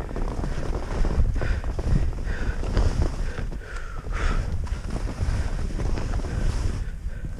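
Wind buffeting the microphone during a descent down a snowy slope, with the hiss and scrape of sliding through heavy snow and a few brief scraping turns.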